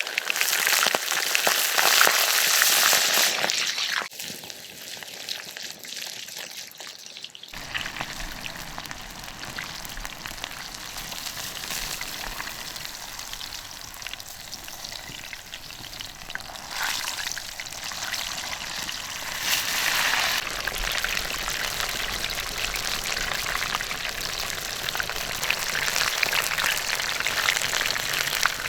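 A whole chicken sizzling in the hot embers of a wood fire, a dense hiss with fine crackles. The sound drops abruptly about four seconds in and shifts again a few seconds later, then continues steadily.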